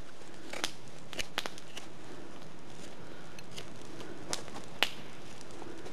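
A knife blade whittling a green alder spoon blank: scattered sharp snicks as the edge cuts through the wood, a quick run of them in the first second and a half and two more later, the last the loudest.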